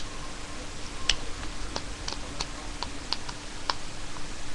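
Scattered light clicks and taps, irregularly spaced, from small screws and a screwdriver being handled against the plastic lid of a Dye Rotor paintball loader as the lid screws are put back in.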